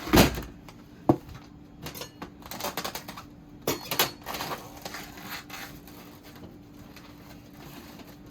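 Smoked turkey necks put into a bowl: a heavy knock as they land, a sharp click about a second later, then scattered light clicks and rustles of handling that fade out.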